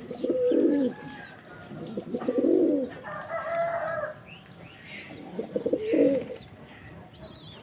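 Male sabza pigeon cooing in three loud phrases, near the start, about two seconds in and about five and a half seconds in, with a higher call between them and faint chirps of small birds.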